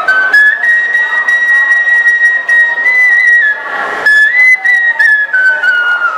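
Bamboo transverse flute (bansuri) playing a slow melody: a long held high note, a short break about four seconds in, then another high note that steps down in pitch near the end.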